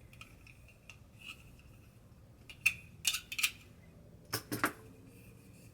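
Short sharp clicks and scrapes of a CZ 75 SP-01 Shadow pistol magazine body being worked inside with a cleaning tool: three near the middle, then two more about a second later.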